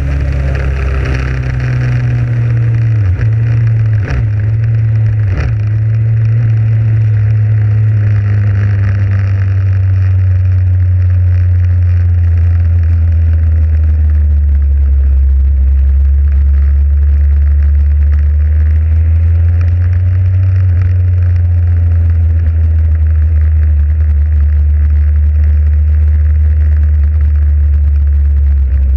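Motorcycle engine running under way, with wind rushing past. The engine note falls over the first few seconds as the bike slows, with a few brief dips about three to five seconds in, then runs steadily at low speed. The wind hiss fades as the bike slows.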